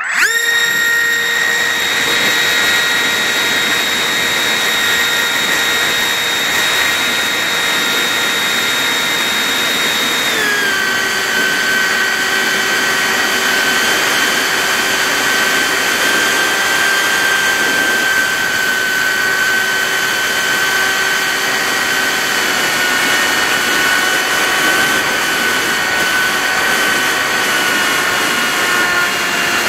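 The TBRC Reflex 38 RC model plane's motor and propeller whine, heard close on the onboard camera. The whine starts suddenly as the motor is throttled up and holds a steady high pitch, then drops in pitch about ten seconds in as the throttle is eased back. After that it stays fairly steady, with wind rush on the microphone underneath.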